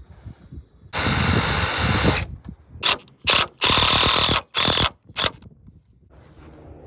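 Cordless drill driving screws into a metal joist hanger on a wooden rafter: one long run of about a second, then five short spurts as the screws are seated.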